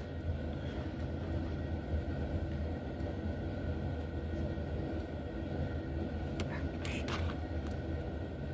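Steady low background hum, with a few faint small clicks near the end.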